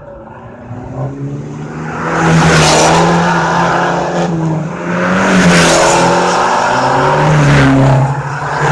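Abarth 595's turbocharged four-cylinder engine, driven hard toward and past on a mountain bend. The exhaust note rises and falls repeatedly, getting loud about two seconds in, with a few short hissing flares over the engine.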